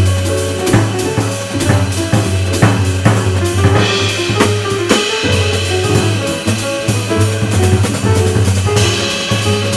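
A jazz quartet playing live: archtop electric guitar, grand piano, upright double bass and drum kit. The bass line and busy drumming run throughout, with the cymbals swelling about four seconds in and again near the end.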